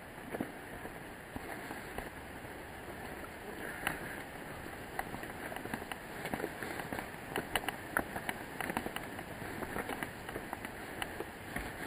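Footsteps crunching on a stony path and stone steps: many small, irregular scuffs and clicks over a steady rushing background.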